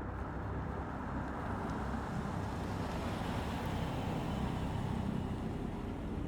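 Steady rumble of road traffic, swelling slightly toward the middle and end.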